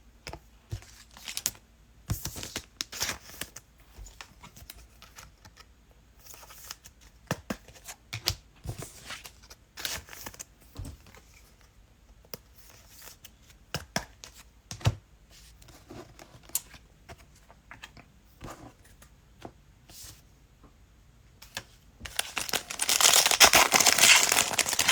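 Cellophane-wrapped trading card packs and cards being handled, with scattered crinkles and clicks. About 22 s in, a cello pack wrapper is torn open with a loud crinkling rip lasting about three seconds.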